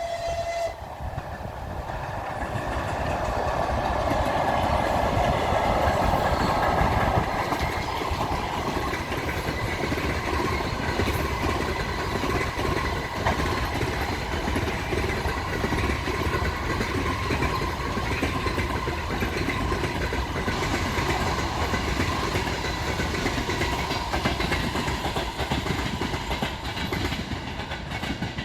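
ChS200 electric locomotive hauling a passenger train past: a horn note cuts off about half a second in, then the rush of the locomotive going by swells to its loudest a few seconds later. It gives way to the steady clatter of the coaches' wheels over the rail joints.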